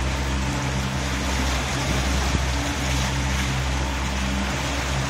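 Motorboat engine running at a steady speed, a constant low hum, over a steady hiss of water and wind as the boat moves along.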